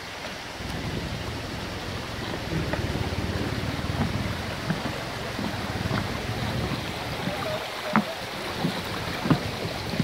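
Shallow stream running over stones, a steady rushing sound, with a couple of short knocks near the end from footsteps on the wooden plank bridge.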